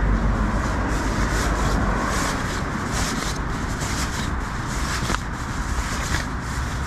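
Sleeping bag being stuffed into a nylon stuff sack: continuous rustling and swishing of the synthetic fabric, over a steady low rumble.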